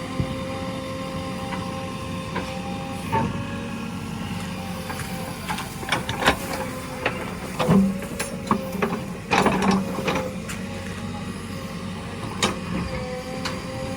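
JCB 3DX backhoe loader's diesel engine running steadily with a held whine, and a run of sharp knocks and clanks from about five to eleven seconds in, with one more near the end.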